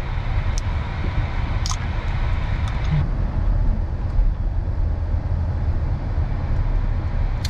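Steady low rumble of road and engine noise inside a moving car's cabin, with a few light clicks in the first three seconds.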